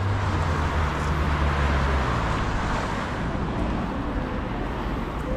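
City street traffic noise, with a motor vehicle's low engine hum that stops about two seconds in.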